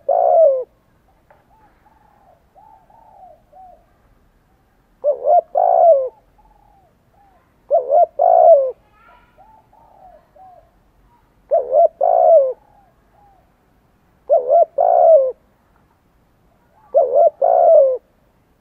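Spotted dove cooing: six loud, short phrases of a few notes each, about one every three seconds, with fainter cooing between them.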